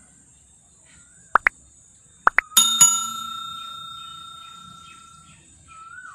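Sound effects of a YouTube like-and-subscribe overlay: two pairs of quick clicks, then a bell ding about two and a half seconds in that rings out and fades over about three seconds.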